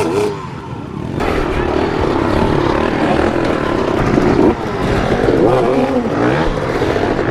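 Several off-road dirt bike engines revving and running over one another, their pitches rising and falling as the riders work the throttles; the sound swells to full loudness about a second in.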